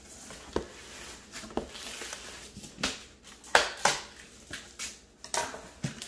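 Scissors slitting the packing tape on a cardboard carton and the cardboard flaps being pulled open: a series of sharp scrapes, rips and knocks, loudest about halfway through.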